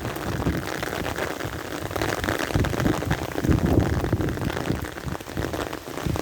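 Heavy rain pattering densely on an umbrella canopy, with gusts of wind buffeting the microphone in low rumbles that swell and fade.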